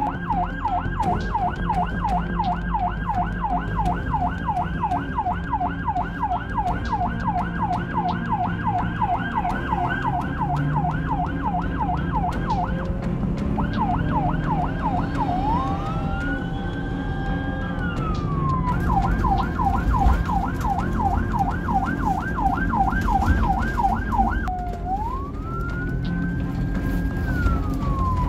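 Ambulance siren heard from inside the cab, switching between a fast yelp of about four sweeps a second and a slow wail that rises, holds and falls. Engine and road rumble run underneath.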